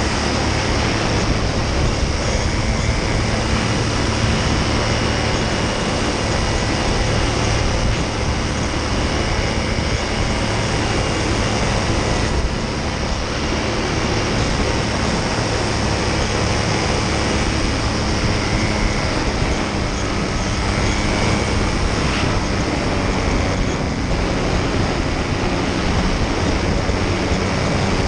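A paramotor's engine and propeller running steadily in flight, a constant drone with wind rushing past.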